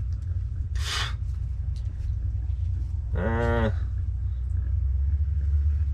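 A steady low rumble throughout, with a short rustle about a second in and a man's brief hummed "mm" about three seconds in, slightly rising then falling in pitch.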